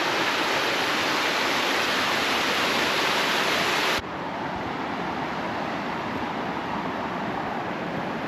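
Waterfall: a steady rush of falling water. About four seconds in it drops suddenly to a lower, duller rush, which then carries on steadily.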